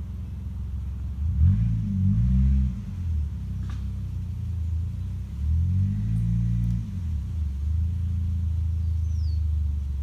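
A low engine drone that swells twice, its pitch rising and falling each time, with one short high bird chirp near the end.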